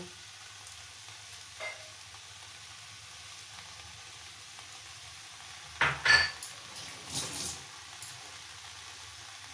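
A pan of rice pulao sizzling gently, with a utensil knocking and scraping against the pan in a short burst about six seconds in and again a second later.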